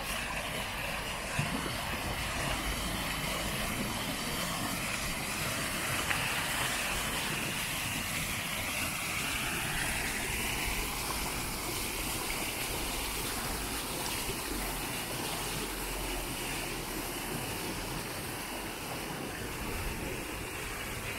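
Water spilling over the rim of a round, tiered stone fountain and splashing into its basin: a steady rush of water, with traffic noise in the background.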